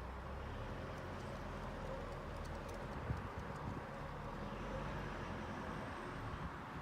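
Dogs and a kitten scuffling at play, with scattered light clicks and one sharp thump about three seconds in, over steady low background noise.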